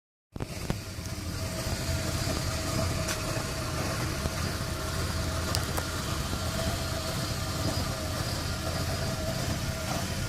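2011 Toyota Prius's 1.8-litre four-cylinder petrol engine running steadily, with a few faint ticks; the owner says this engine is misfiring.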